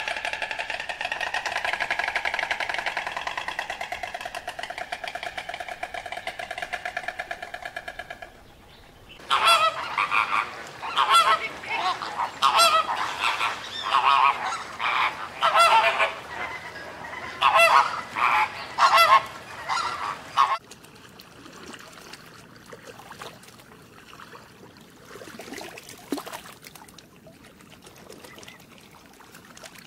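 Animal sounds: a steady drone with several pitches held for about eight seconds, then after a short gap a run of about a dozen short, loud calls, then a quiet stretch with only faint scattered sounds.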